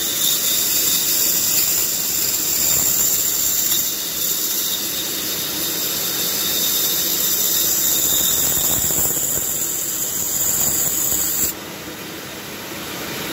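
Pégas fine-cut band saw sawing a thin slice off a block of wood: a steady high hiss of the fine blade in the wood. The hiss cuts off suddenly near the end as the blade clears the cut, leaving the saw running on more quietly.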